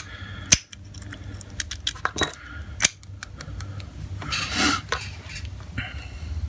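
Metal clicks and clinks from a Chicago Duo wafer padlock being handled and worked at the keyway: several sharp clicks, then a short scrape about four and a half seconds in.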